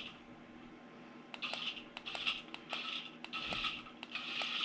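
Remote-control toy snake running in short starts and stops: its small motor and gearing whirring and rattling in brief bursts, with sharp clicks between them.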